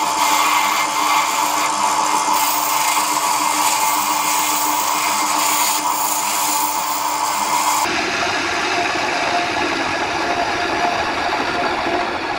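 Wood lathe running while a hand-held turning tool cuts the spinning areca root wood, a steady hiss of cutting over the machine's hum. About eight seconds in the sound changes abruptly, losing its high hiss and steady tone.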